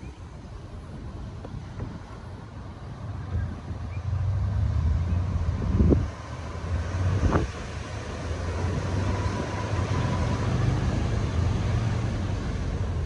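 A low, steady vehicle rumble that grows louder a few seconds in, with two sharp thumps a second and a half apart near the middle.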